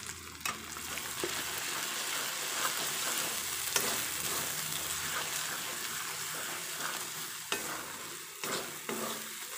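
Onions and ground spices sizzling in hot oil in a kadai while a spatula stirs and scrapes through them, with a few sharp clicks of the spatula on the pan. This is the masala being fried down after the spice powders go in.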